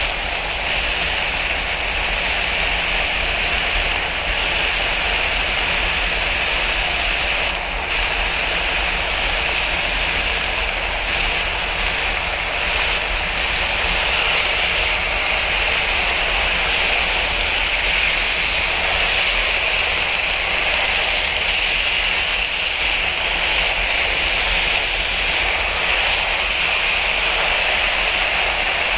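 Frozen bitter gourd slices with onion, garlic and chillies sizzling steadily in a hot pan, a loud even hiss. One brief knock about seven and a half seconds in.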